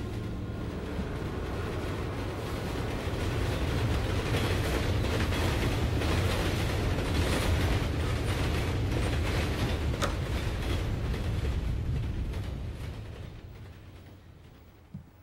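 A deep, noisy rumble that swells over the first few seconds, holds, then fades away near the end, with one short thud just before it dies out.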